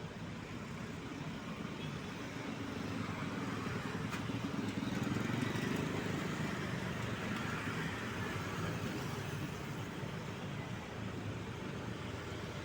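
A road vehicle's engine and tyres passing close by, growing louder to a peak about halfway through and then easing off.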